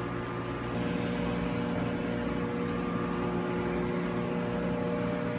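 Steady mechanical hum of running HVAC equipment, with several steady tones from motors or fans and no change in pace.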